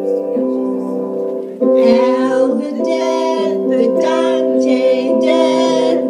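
A song: held instrumental chords, then a loud singing voice comes in just under two seconds in and carries on in short sung phrases.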